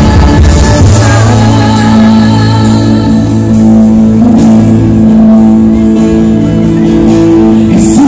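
Live worship band playing loudly through a PA: guitars, drums and keyboard holding sustained chords over a steady bass.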